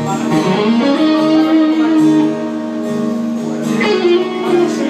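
Electric guitar and acoustic guitar playing together live, sustained notes with a note sliding up about half a second in.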